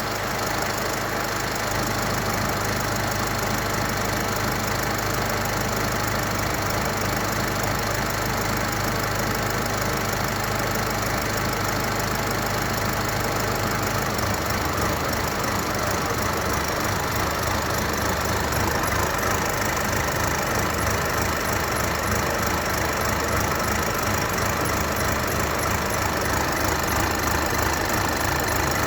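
Mercedes-Benz OM654 four-cylinder diesel idling from a cold start. Partway through, its low note changes and the idle turns uneven: the engine starts to misfire and shake.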